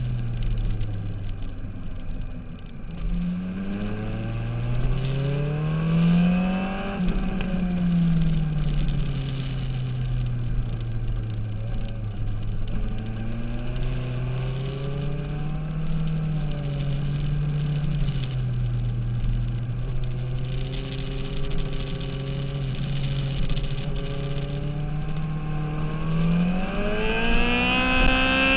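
Motorcycle engine heard on board during a track lap, its revs rising and falling again and again through corners and gear changes. In the last few seconds the engine climbs steadily and high in pitch under hard acceleration.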